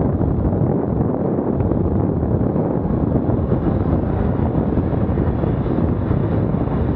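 Steady, loud wind noise buffeting the microphone, an even rush with no separate events.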